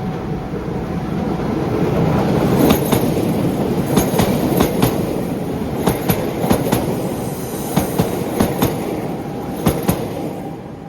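Keihan Keishin Line electric train passing over a level crossing. Its wheels clack over the rail joints in close pairs, about eight pairs in all, over a heavy rumble that builds, then fades near the end.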